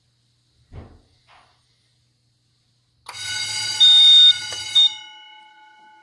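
A short knock, then about three seconds in an electric fire alarm bell starts ringing loudly. It stops abruptly after about two seconds, and the gong keeps ringing as it fades.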